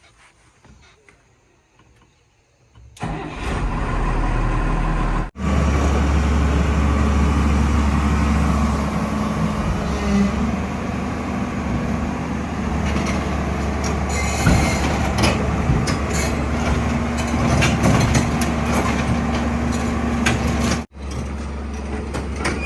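Excavator's diesel engine running steadily with a strong low hum, coming in about three seconds in after near quiet. Scattered knocks sound over it in the second half, and the sound cuts out for an instant twice.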